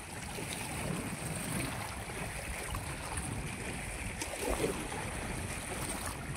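Wind buffeting the microphone over small waves lapping against a rocky shore.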